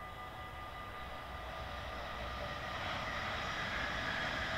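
Level-crossing bells ringing steadily while an approaching passenger train's rail noise grows louder from about two seconds in.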